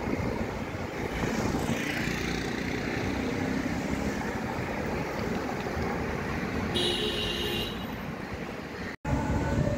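Busy city road traffic: cars passing slowly with a steady rumble of engines and tyres, and a short car-horn honk about seven seconds in.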